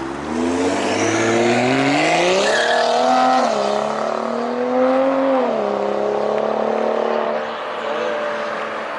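BMW F10 535i's turbocharged 3.0-litre inline-six, straight-piped with a muffler delete and aftermarket downpipe, accelerating hard. The engine note rises, drops at an upshift about three seconds in, rises again, shifts again a couple of seconds later, then settles to a steady cruise.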